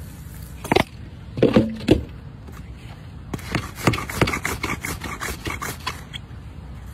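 A few sharp knocks in the first two seconds. Then a length of white PVC pipe is rolled back and forth under a shoe over putting-green turf, a quick run of scraping clicks at about four or five a second, firming a sand-filled turf repair.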